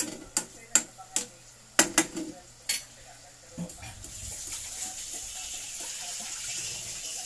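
Metal spoon stirring chicken and potato cubes in a frying pan: about seven sharp clanks and scrapes against the pan over the first three seconds. A steady hiss follows.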